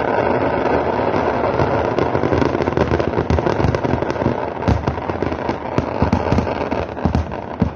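Fireworks going off in a dense, continuous crackle of rapid pops, too fast to count, with a few heavier bangs standing out in the second half.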